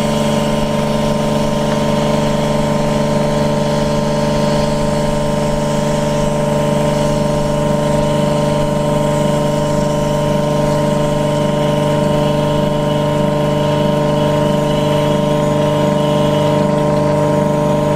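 Rainman watermaker's high-pressure pump and motor running with a steady hum, while its working pressure is being let off during shutdown.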